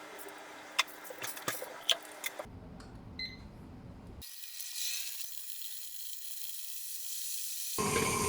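Light clicks and knocks of kitchen utensils being handled, a short beep about three seconds in, then a steady hiss. Near the end an electric mixer's motor starts, running steadily as it kneads the bread dough.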